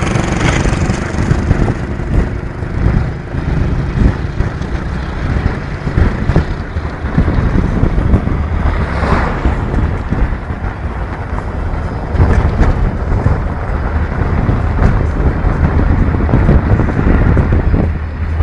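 A motor vehicle's engine running steadily while driving, heard from on board, with wind buffeting the microphone in gusts.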